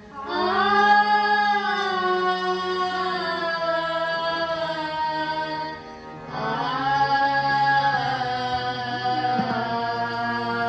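Sikh shabad kirtan: a voice singing two long melodic phrases, each opening with an upward swoop after a short pause for breath, over sustained low accompanying notes that step in pitch.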